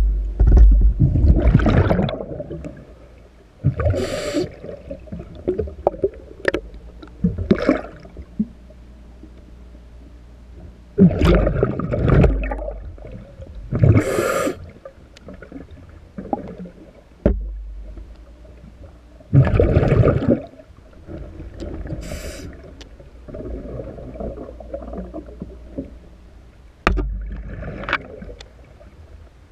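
A diver breathing through a regulator underwater: short inhale hisses alternating with bursts of exhaled bubbles, repeating every few seconds.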